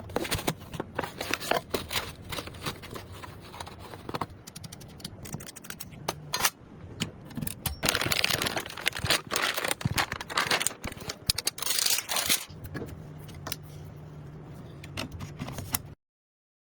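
Computer parts being handled and fitted during a PC build: many sharp clicks and taps of plastic and metal, with a denser stretch of scraping and rustling in the middle. A low steady hum sets in near the end.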